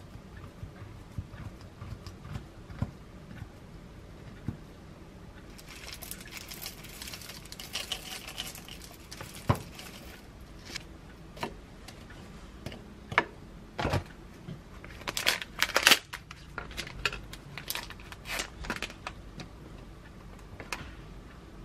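Food-prep sounds in a kitchen. First there are light ticks of a knife slicing a peeled banana on a cutting board. From about six seconds in comes a rattling hiss of granola poured from a jar into a bowl, lasting about four seconds. Later a run of sharp clicks and taps follows as fruit pieces and utensils are set into the bowl and onto the counter.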